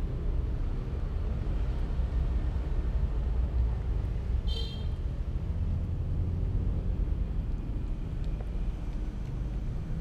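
Steady low rumble of background traffic noise, with one brief high-pitched chirp about halfway through.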